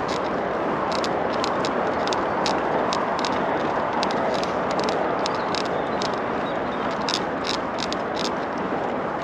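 Steady rush of wind on the microphone and tyre noise from a Carrera Hellcat mountain bike being ridden, with scattered sharp ticks and rattles over it.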